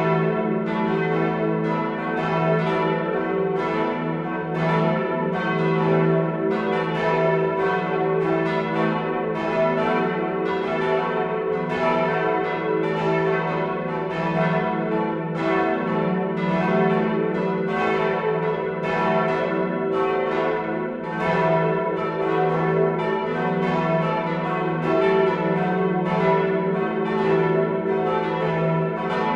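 Several church bells ringing together. Strikes of different pitches overlap at about two to three a second, over a steady hum that carries on between the strikes.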